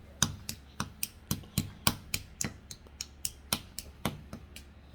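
A hammer tapping again and again on a toy dinosaur egg to crack it open: quick, sharp knocks, about three a second.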